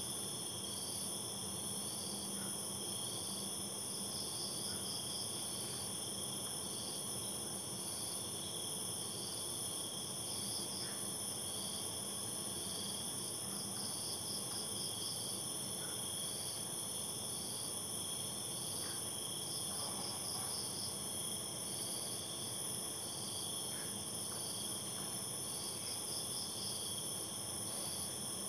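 Night insects shrilling in a steady chorus at several high pitches, with one insect's trill coming in short repeated bursts about once a second.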